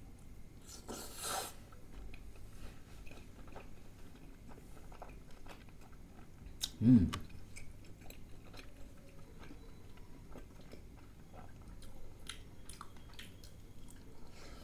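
Close-miked chewing of stuffed aloo kulcha dipped in curry: many small wet mouth clicks. There is a noisy bite about a second in, and a short, louder low sound, falling in pitch, about seven seconds in.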